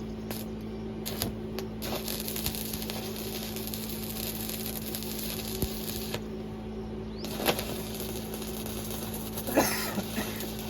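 Electric arc welding: a dense crackling from the arc for about four seconds, again briefly later, over a steady electrical hum. A couple of sharp knocks come near the end.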